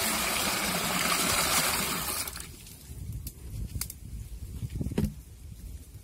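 Water gushing and splashing from a jug into a large aluminium pot, stopping about two seconds in. A few light clicks and knocks follow.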